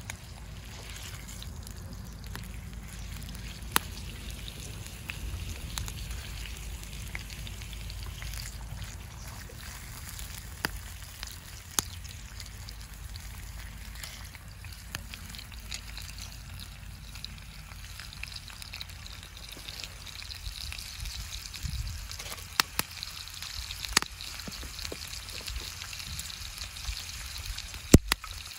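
Camp cooking: scattered sharp clicks and knocks over a low steady rumble, with a hiss of food frying building up in the second half.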